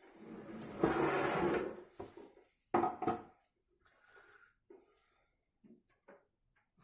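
Hardware being handled in a plastic PC case while an SSD is tried in its mount: a scraping rustle over about a second and a half, then a couple of sharp knocks and a few light clicks.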